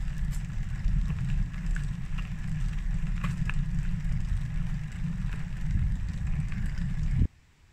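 Wind buffeting and the rumble of a Specialized Tero 4.0 EQ e-bike's thick knobbly tyres on a dirt trail, ridden with the motor switched off, with faint light ticks and chirps above. It cuts off suddenly near the end.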